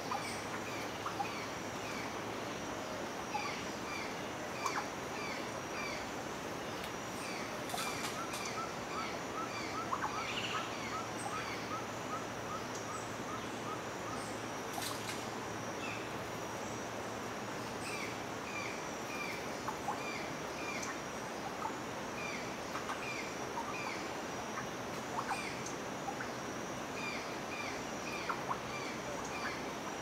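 Forest ambience of several birds calling over a steady hiss and a high steady hum. One bird gives short chirps over and over. Another gives a quick run of even notes for several seconds a third of the way in, and a few sharp clicks stand out.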